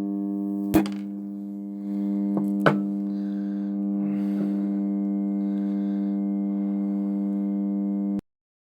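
Microwave-oven transformer humming steadily under load while heating metal. Sharp clicks come about a second in and again near three seconds, the hum grows louder about two seconds in, and it cuts off abruptly near the end when the power is switched off.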